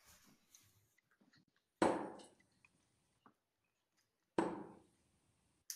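Two steel-tip darts hitting a Unicorn bristle dartboard about two and a half seconds apart, each a sharp thud that dies away over about half a second.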